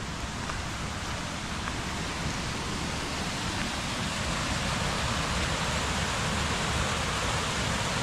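Rain-swollen creek water rushing over a small waterfall, a steady roar that grows gradually louder.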